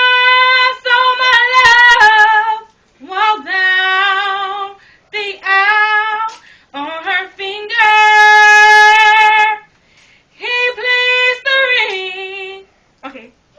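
A female voice singing unaccompanied, a slow soulful melody of long held notes with vibrato, in several phrases with short breaks for breath. The longest and loudest note is held about two-thirds of the way through.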